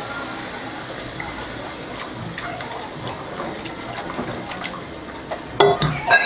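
Pearl millet (kambu) slurry being poured into boiling water in a clay pot and stirred with a plastic spoon: a steady pouring and swishing of liquid. A few sharp knocks near the end.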